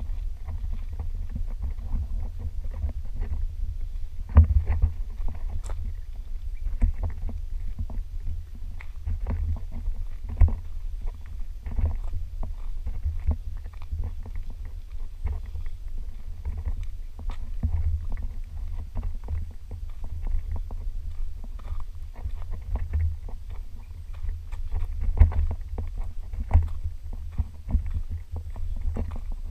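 Footsteps on a rocky dirt and gravel trail, many uneven steps, over a continuous low rumble on the microphone from it being carried while walking.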